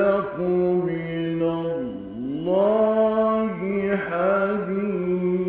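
A male reciter chanting the Quran in the melodic mujawwad style: long held notes joined by slow pitch glides, one swooping down and back up about two seconds in.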